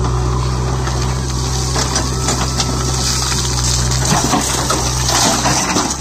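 JCB backhoe loader's diesel engine running steadily under hydraulic load. About four seconds in its note changes, and a load of rock and soil pours from the bucket into a tractor trolley with a rattle of tumbling stones.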